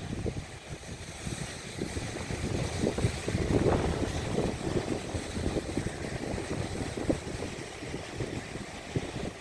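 Wind buffeting the microphone in irregular gusts over a faint, steady background hiss.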